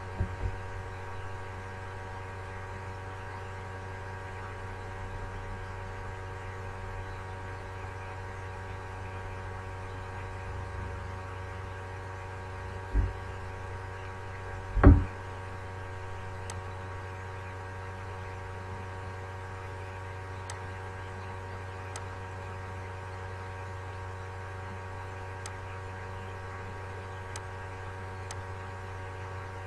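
Steady electrical mains hum with several constant tones, picked up on a call microphone. Two low thumps about 13 and 15 seconds in, the second louder, and faint scattered clicks through the second half.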